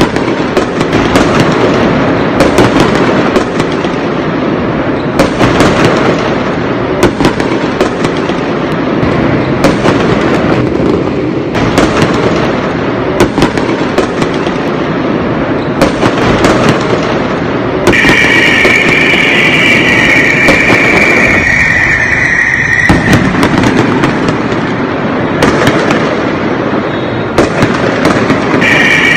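Many fireworks going off at once over a city: a continuous rumble of overlapping bangs and crackling. For about five seconds past the middle a steady high tone sounds over the bursts.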